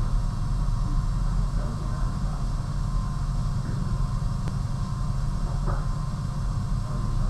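Steady low rumble of room background noise, with no clear foreground sound.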